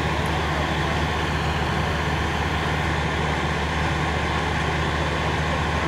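Fire truck engine idling steadily: a constant low drone with an even rushing noise over it.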